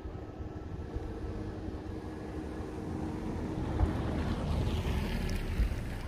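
Wind blowing across the microphone: a rough, low rumble with a faint steady hum beneath it, slowly growing louder over the second half.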